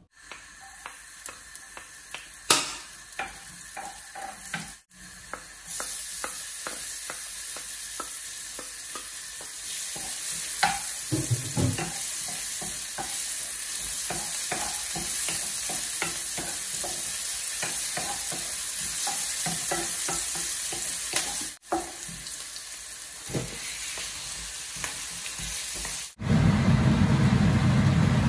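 A knife tapping through sausages on a wooden chopping board, then chopped onion sizzling as it fries in a pan, stirred and scraped with a wooden spoon. Near the end a loud, steady low hum starts abruptly.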